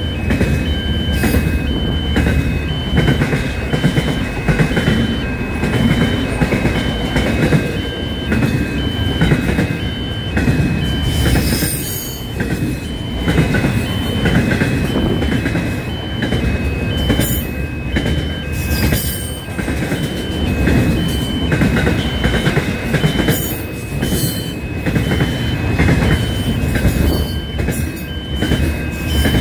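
Container freight train passing close by at speed: a continuous rumble of wagons with repeated wheel clacks over the rail joints. A faint high beeping tone repeats underneath.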